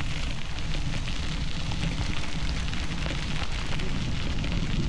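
Bicycle tyres rolling over a gravel trail, a steady crunching crackle, with wind rumbling on the microphone.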